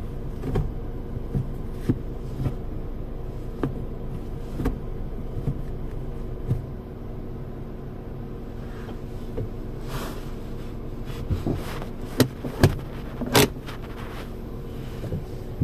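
Kia Stonic's engine idling steadily, heard inside the cabin, with light clicks and knocks as the five-speed manual gear lever is moved through its gates. A few louder, sharp clacks come near the end.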